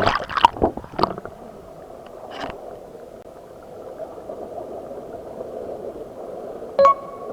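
Sound picked up by an underwater camera's microphone as it goes into the sea. A few sharp knocks and splashes in about the first second give way to a steady, muffled rush of water, and a short beep sounds near the end.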